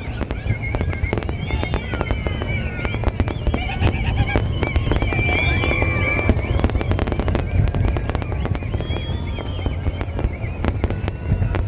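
Fireworks display: a rapid, continuous run of bangs and crackles over a steady low rumble, with high gliding tones mixed in.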